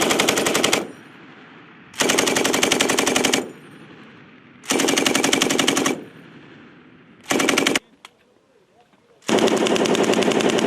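Belt-fed machine gun firing bursts of rapid automatic fire, about five of them, each roughly a second or so long with one brief half-second burst. The reports echo between bursts.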